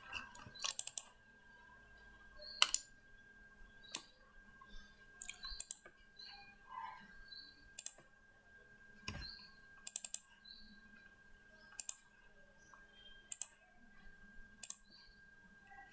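Computer mouse clicking, single clicks and quick double clicks about every second or so, over a faint steady electrical hum.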